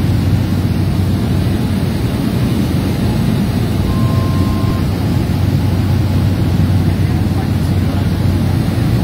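Steady loud drone of a small passenger plane's engine and propeller, heard inside the cabin during the descent to land, with a strong low hum under a wash of noise.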